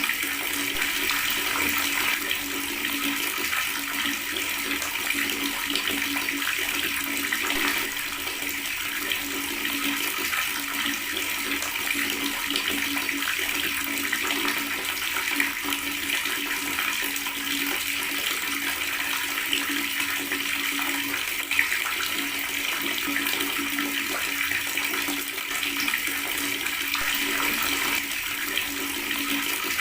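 Water running steadily from a tap and gurgling in a continuous, even stream.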